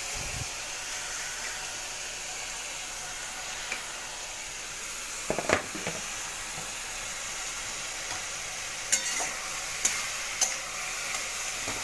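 Diced potatoes with onion, ginger-garlic and tomato masala sizzling steadily in a metal kadai while a spatula stirs and scrapes the pan, with a few sharp scrapes against the metal about halfway and more near the end. The masala is being sautéed until the raw smell of the ginger and garlic goes.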